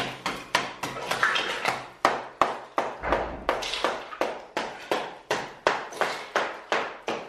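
Repeated hammer blows on masonry, about three a second, each with a short ring, as a wall is broken out during demolition work.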